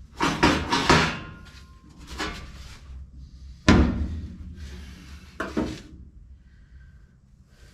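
Knocks and metallic clatter of hand work on a car door, taking out its vent window and glass. A cluster of knocks comes about half a second in, with a brief ring after it. A single sharp knock, the loudest, comes midway, and another comes later, before it goes quiet.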